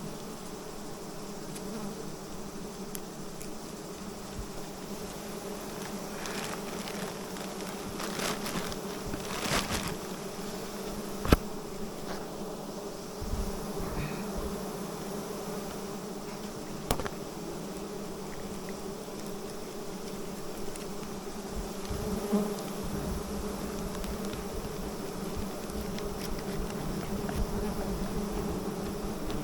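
A swarm of wild honey bees buzzing steadily in a dense, continuous hum, with a few rustles and two sharp knocks partway through.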